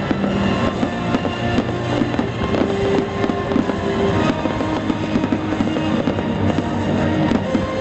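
Fireworks popping and crackling in quick succession over music.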